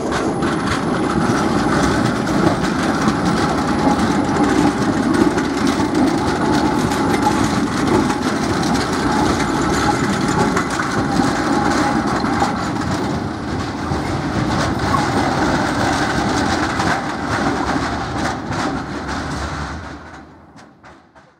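Škoda 15T low-floor articulated tram rolling through a street junction, its wheels clattering over the points and crossings in a steady run of clicks over the rolling noise. The sound fades out near the end.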